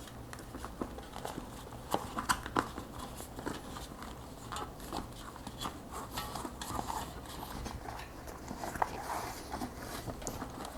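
Hands tucking a rubber inner tube into a bicycle tyre on its rim: irregular light taps and rubbing, with a few louder knocks about two seconds in.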